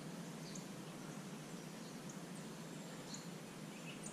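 Faint, steady outdoor background noise with several short, high chirps scattered through it.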